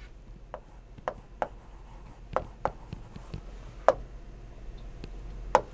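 Stylus writing on an interactive display: irregular sharp taps and light scratches as letters are written.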